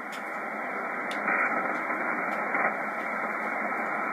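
Icom IC-735 ham receiver in single-sideband mode on the 160-metre band giving out steady static hiss, with no station talking, and a couple of faint clicks.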